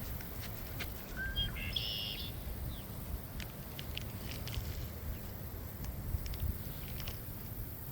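Wind rumbling steadily on the microphone, with a short bird call about a second and a half in and a few faint ticks.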